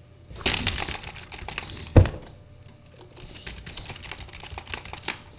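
Computer keyboard typed on fast, keys mashed at random in quick runs of clicks, with one heavier thump about two seconds in.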